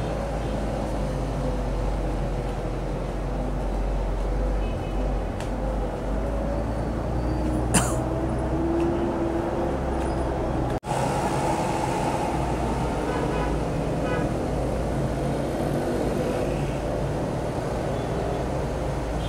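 Steady, distant city traffic noise with a low rumble. A few short high tones and a single sharp click come about eight seconds in.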